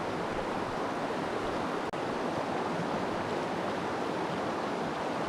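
Steady rushing of stream water, with a brief dropout about two seconds in.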